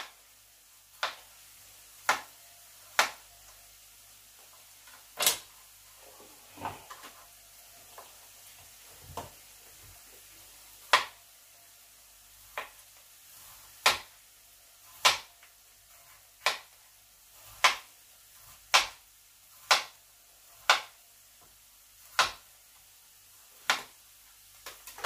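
Kitchen knife slicing a potato into thick rounds on a plastic cutting board: a sharp knock each time the blade meets the board, about once a second at an uneven pace.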